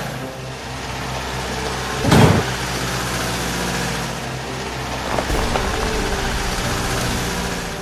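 A vehicle engine running steadily at idle, with one short, loud noise about two seconds in and a few light clicks later.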